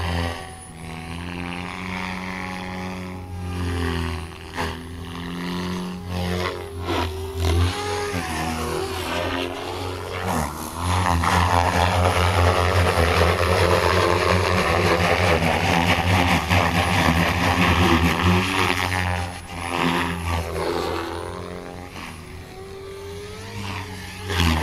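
OMP M4 electric RC helicopter in flight: rotor blades whooshing over the whine of the motor and gears, rising and falling in pitch as it manoeuvres. It is loudest for several seconds around the middle.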